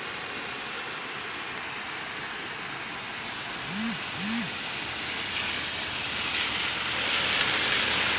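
Steady rushing of water from a discharge pouring into a river after rain. About four seconds in come two short low sounds that rise and fall in pitch, and a brighter, louder hiss builds over the last few seconds.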